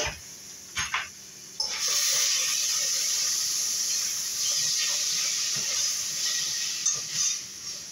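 Steam hissing steadily from a lidded stainless steel pot on the stove, starting suddenly about two seconds in and easing off near the end, after a couple of light knocks.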